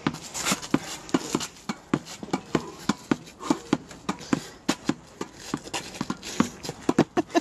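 Tennis balls being struck with a racket and bouncing on the court: a quick, irregular series of sharp knocks, about two or three a second.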